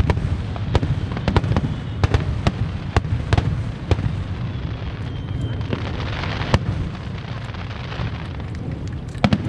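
Aerial fireworks bursting in quick succession, sharp bangs over a steady low rumble. The bangs thin out after about four seconds, giving way to a softer crackling hiss, with a last pair of bangs near the end.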